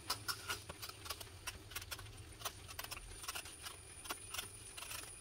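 Hand vegetable peeler scraping thin strips of rind off a breadfruit: a run of short, sharp scraping strokes, irregular, a few each second.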